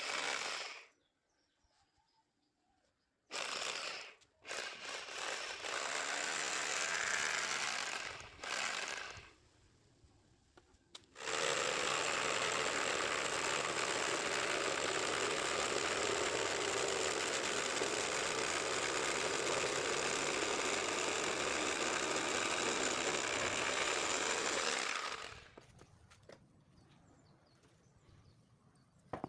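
Homemade reciprocating saw driven by a concrete hammer drill, running with a fast mechanical chatter. It comes in three short bursts, then runs steadily for about fourteen seconds and stops.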